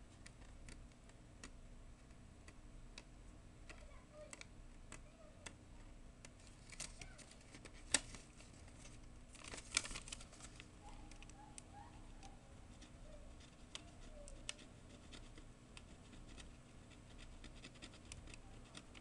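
Faint, irregular scratching and small ticks of a tool scraping at the printed circuit trace on a keyboard's plastic membrane film, with a couple of slightly louder clicks around eight and ten seconds in.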